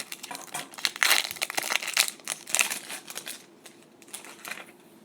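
A hockey trading card pack's wrapper crinkling and tearing as it is opened, in dense irregular crackles that die down after about three and a half seconds.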